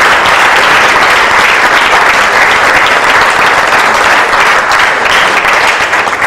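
Loud, steady audience applause.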